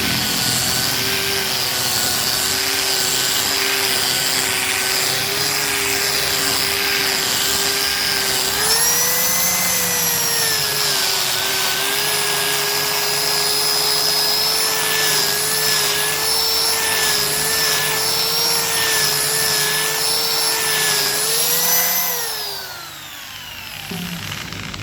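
Electric hand-held angle grinder sanding a solid-wood chair seat: a steady high motor whine with a loose abrasive rush, its pitch rising and dipping slightly as it works. Near the end it is switched off and winds down, the whine falling away.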